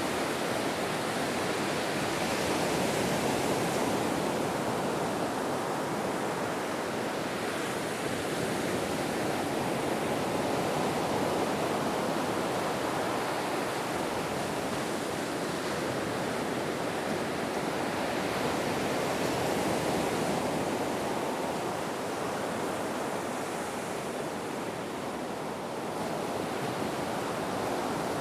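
Ocean waves washing onto a shore: a continuous surf wash that swells and eases slowly every several seconds.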